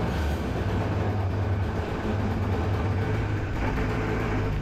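Small two-stroke chainsaw engine, mounted on a go kart with an oversized carburettor and a ported muffler, idling steadily.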